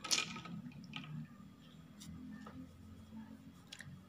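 A hand splashing in a bowl of icy water, with a sharp splash at the start, a smaller one about a second in, then a few drips and small clicks as a plastic toy figure is lifted out.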